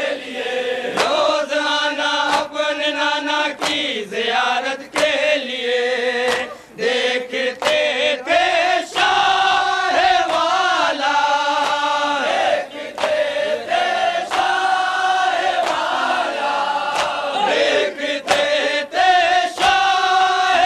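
A group of men chanting a Muharram nauha (lament) in a wavering melody. Sharp strikes come in time with it about once a second: matam, hands beaten on chests.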